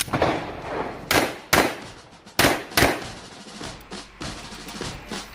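A series of sharp bangs with short ringing tails: one at the start, then two quick pairs about a second in and two and a half seconds in, followed by fainter ones.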